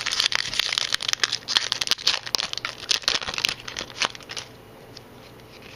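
Pokémon booster pack's foil wrapper being torn open and crinkled: dense crackling for about three and a half seconds, then a few scattered crinkles.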